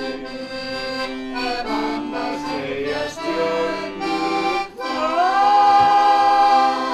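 Piano accordion playing a song while a man and a group of elderly women sing along. About five seconds in the voice slides up into a long held note.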